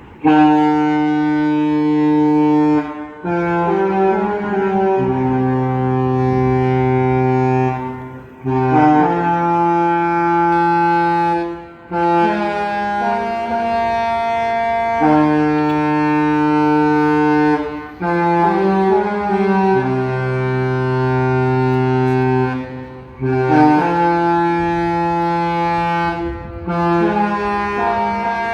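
A cruise ship's musical horn playing a tune of long, loud held notes at several pitches. The phrase is sounded about twice over.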